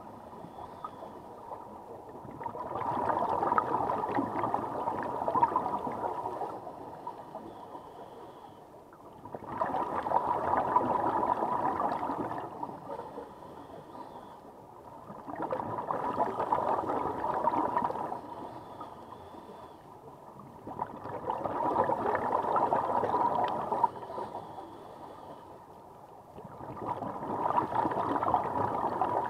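Scuba regulator exhaust heard underwater close to the microphone: a burst of gurgling, rushing bubbles with each exhale, about every six seconds, five in all, with quieter gaps for the inhales between.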